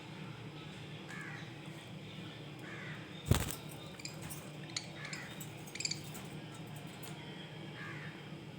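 Budgerigars giving short chirps every second or two over a steady low hum, with one sharp knock about three seconds in and a couple of lighter clicks after it.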